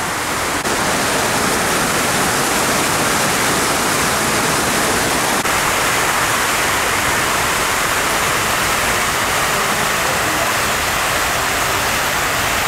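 Rows of fountain water jets splashing steadily into a basin, a continuous rushing of falling water.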